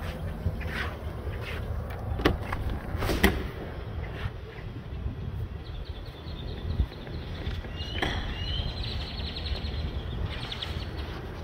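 A key working a front-door deadbolt and the latch as the door is unlocked and opened: two sharp clicks about a second apart, the second the loudest. Later a bird chirps rapidly in the background, over a steady low rumble.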